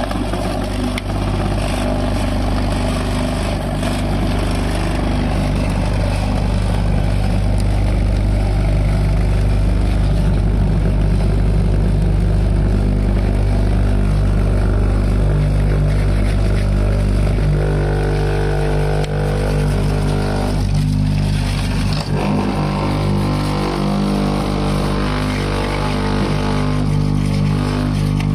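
Concrete vibrating table running steadily, its motor humming and the steel mould shaking to compact the wet concrete being packed in.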